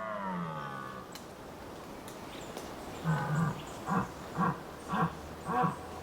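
Rutting deer stag calling. The tail of a long call falls away in pitch, and after a pause comes a longer call, then four short grunts about half a second apart.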